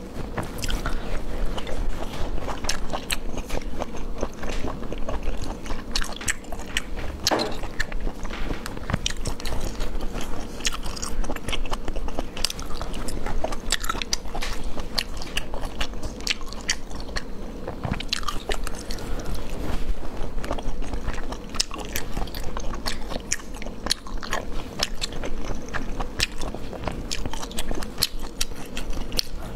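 Close-miked eating of sea snails in spicy sauce: sucking the meat out of the shells and chewing, with many short sharp mouth clicks throughout.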